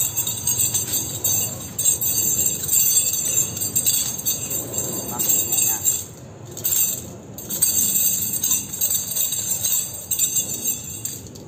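Metal nunchaku being swung and spun nonstop, its chain jingling, with two short breaks about halfway through.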